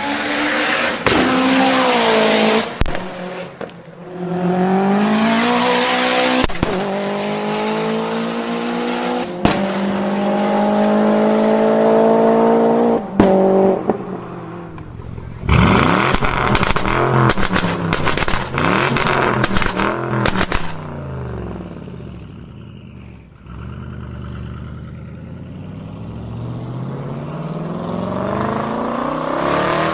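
Performance car engines accelerating hard, the pitch climbing through long pulls, with single sharp exhaust bangs between them. About halfway through comes a rapid string of exhaust pops and crackles over quick rises and falls in revs. Then a quieter engine note rises in pitch toward the end.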